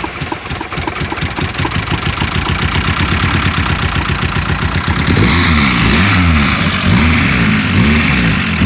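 Nissan 240SX engine running rough just after its first start in nine years, on a newly fitted fuel pump. About five seconds in it is revved repeatedly, its pitch rising and falling about every three-quarters of a second, while the whole engine shakes.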